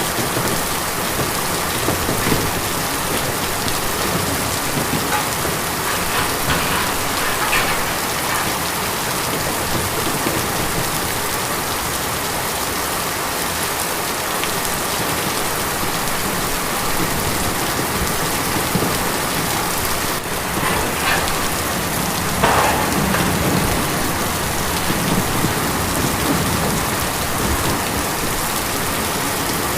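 Steady rain falling on a tin roof, a dense even patter, with a few louder spells of drops about a quarter of the way in and again about three quarters through.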